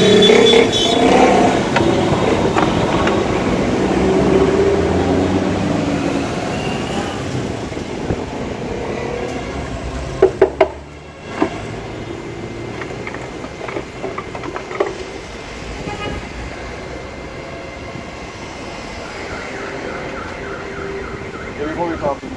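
Street traffic noise: a motor vehicle passing close by, loudest at the start and fading over several seconds. A few sharp knocks come about ten seconds in, and a lighter traffic background follows.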